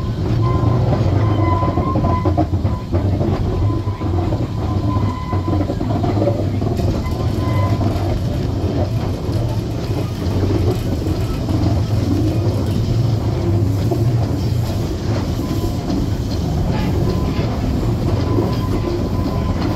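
Narrow-gauge steam locomotive on the move, heard from its footplate: a steady rumble and rattle of the engine and its wheels on the rails.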